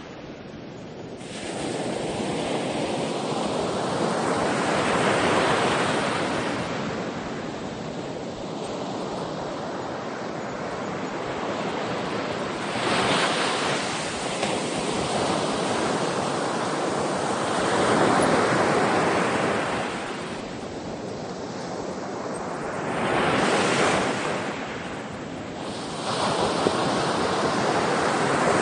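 Sea surf: waves rolling in and washing back, the rush swelling and easing every five seconds or so.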